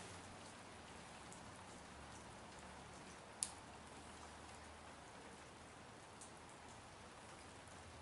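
Light rain falling, a faint steady patter with a single sharp tick about three and a half seconds in.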